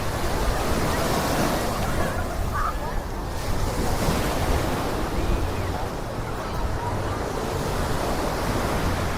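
Ocean surf washing onto the beach, a steady wash of noise, with wind buffeting the microphone as a low, uneven rumble.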